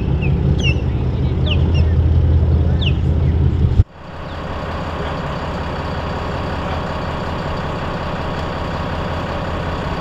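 Boat engine rumbling low while birds give short high chirps over it. The sound cuts off sharply about four seconds in, and a steady engine hum follows without a break.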